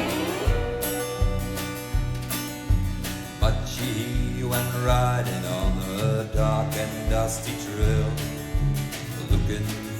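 Country band playing an instrumental passage: guitar over a steady drum beat, with sliding notes from a lead instrument.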